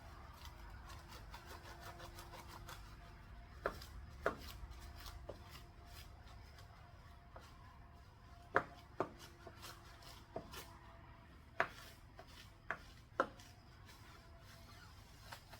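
A few sharp, separate clicks and taps, about eight in all, scattered irregularly over a low steady hum: hands handling hard plastic parts and items while working in a car interior.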